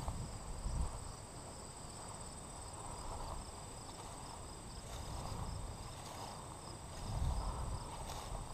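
Insects chirping steadily in the grass: a constant high trill with a faster pulsing trill beneath it, over a low rumble that swells near the start and again about seven seconds in.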